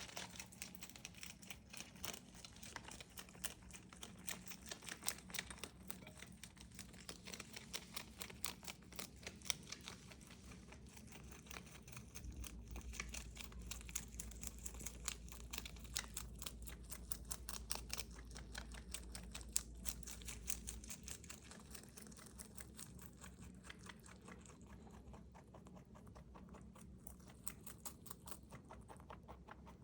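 Pet rabbit chewing crisp bok choy: a quick, steady run of small crunches.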